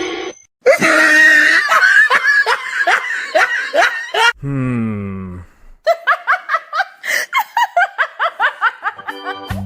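Hearty laughter in rapid, repeated bursts, broken about four seconds in by a falling tone lasting about a second, then more rapid laughter.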